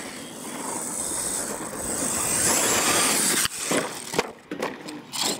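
R/C monster truck running across a dirt track, its motor and tyres making a steady noisy whir that builds for about three seconds. After that come a few short knocks and scrapes.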